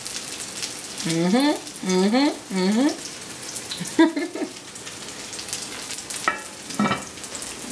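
Crawfish fritters frying in hot oil, a steady sizzling crackle. Early on a voice makes three short wordless sounds, and a few clinks come later as a lid is set on the pot.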